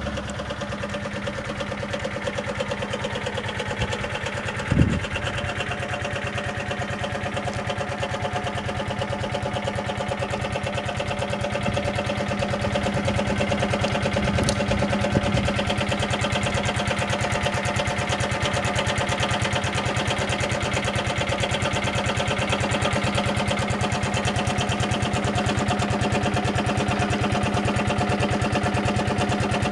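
Suzuki Gemma 125 scooter's engine idling steadily with a fast, even beat, with a single thump about five seconds in.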